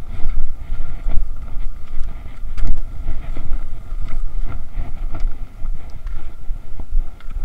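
Wind buffeting the microphone while cross-country skiing, a heavy low rumble that rises and falls, with irregular short clicks and scrapes throughout.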